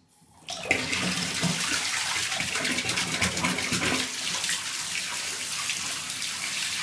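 Bath tap turned on about half a second in, then running steadily, its stream pouring into a bathtub already full of water.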